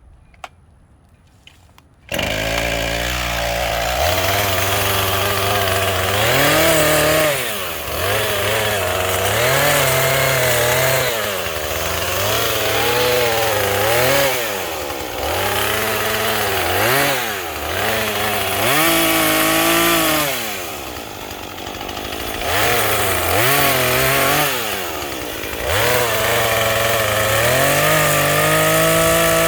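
Small gas chainsaw's two-stroke engine starting about two seconds in, then revved up and down over and over as it cuts through limbs.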